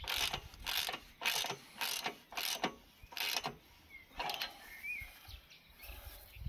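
A run of short, scraping mechanical strokes, about two a second, which then give way to fainter, scattered sounds and a couple of brief chirps.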